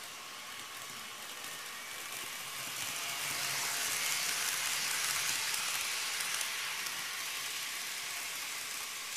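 TOMIX model E259 Narita Express train running on its track: a steady whirring hiss of wheels and motor that swells as the train passes close by, loudest about four to five seconds in, then fades as it runs off.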